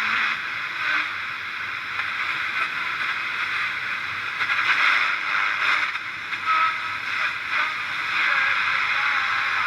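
Radio receiver hissing with static between stations, with faint brief whistles and snatches of signal as it is tuned.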